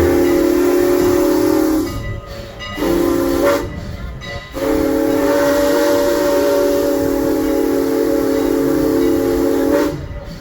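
Steam locomotive #89's chime whistle sounding a chord of several tones in three blasts: a long one, a short one, then a long one of about five seconds. Train running noise lies underneath.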